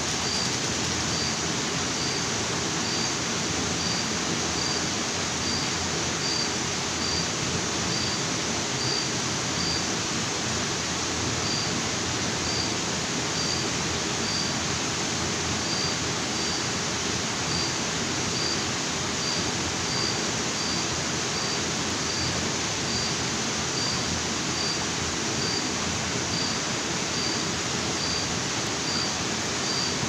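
Steady rush of a jungle waterfall and river. Over it, a thin high chirp repeats about twice a second, breaking off twice for a second or so.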